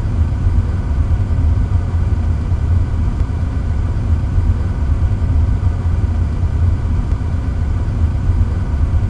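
A steady, deep rumble with no beat, like a large vehicle standing with its engine running.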